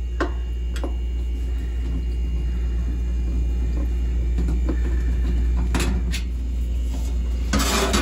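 Phillips screwdriver backing screws out of a refrigerator's rear metal cover, with a few light clicks, over a steady low hum. Just before the end comes a short scraping rustle as the cover is pulled loose.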